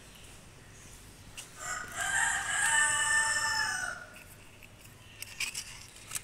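A rooster crowing once, one long call of about two seconds starting about one and a half seconds in. A few light clicks follow near the end as a wire is fitted to a switch terminal.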